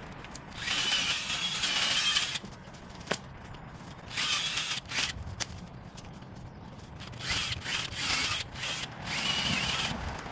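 Kress 20V cordless brushless one-hand chainsaw revving in four short bursts with a high motor whine while cutting hedge branches, with quieter pauses between cuts.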